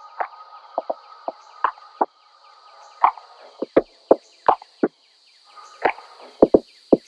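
A quick, uneven series of sharp knocks over a faint steady hum.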